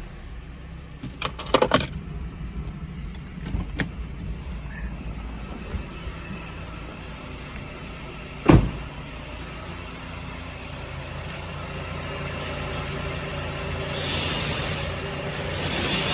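Mazda CX-7's 2.3-litre engine running with a bearing knock: the crankshaft bearing shells are badly worn, with a sharp thump about eight seconds in. The engine grows louder toward the end.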